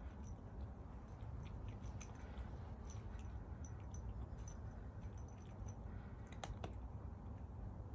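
Calico cat eating dry kibble from a bowl: scattered small crunches and clicks of chewing over a steady low background rumble.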